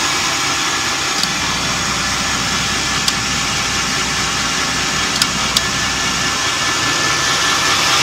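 Electric sawmill running as its saw head travels along a log: a steady mechanical whir with a low hum, and a few short sharp ticks.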